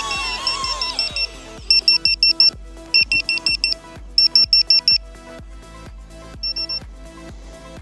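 Rapid high electronic beeping in quick groups of about six beeps, three groups in a row and then a shorter one, over background music.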